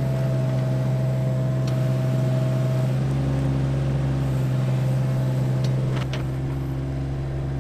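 Case CX17C mini-excavator's diesel engine running steadily under load as the bucket digs a trench, with a higher whine that drops out about three seconds in and comes back later. A few short knocks of the bucket against soil and stones.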